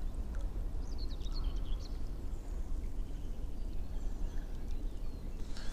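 Outdoor ambience on open water: a steady low rumble of wind on the microphone, with a few faint bird chirps about a second in.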